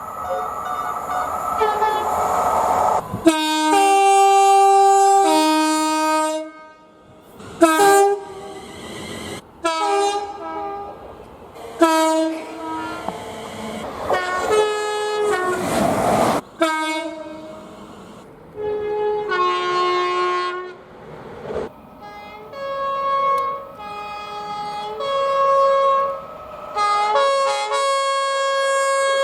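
A rapid series of British train horns, edited clip after clip, each sounding two alternating tones, high and low, in short blasts. A rushing noise builds and cuts off suddenly about halfway through.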